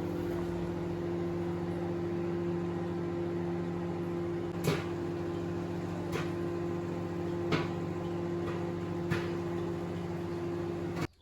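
Microwave oven running with a steady hum while popcorn cooks inside, with four single sharp pops about a second and a half apart. The hum cuts off abruptly near the end as the oven stops.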